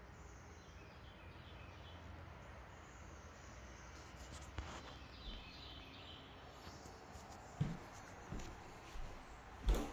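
Footsteps on bare pine floorboards: a few soft thumps in the last few seconds, the loudest near the end, over a faint steady low hum. Faint bird chirps come in briefly about halfway through.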